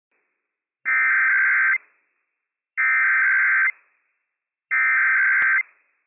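Emergency Alert System SAME header sent over NOAA Weather Radio: three buzzy, warbling digital data bursts, each about a second long and about a second apart. The bursts encode the alert header, here announcing a Required Weekly Test.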